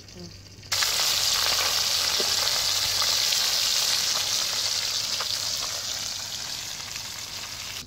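Fish pieces sizzling as they fry in hot oil in a black iron wok, a steady hiss that starts suddenly about a second in and eases off slightly toward the end.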